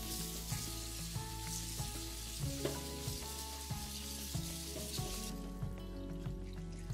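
Tap water running onto blanched chives and enoki mushrooms in a stainless steel colander while a hand turns them under the stream; the water stops about five seconds in. Background music with a regular beat plays throughout.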